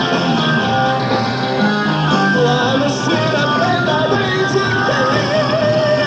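Live rock band recording: full band music with singing. From about two and a half seconds in, a long wavering high note is held over the band.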